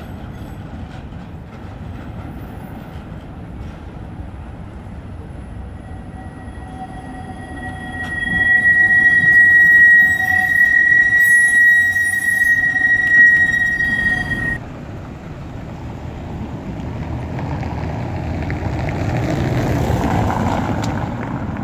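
Škoda 15T low-floor tram rumbling past close by on a tight curve, its wheels squealing on the rails: a high, steady squeal starts about six seconds in, is loudest for several seconds and cuts off suddenly about halfway through. Near the end a car drives past over the cobbles, its noise rising and falling.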